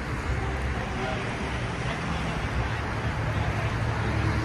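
Road traffic: a steady low hum of passing cars, with faint voices of passers-by.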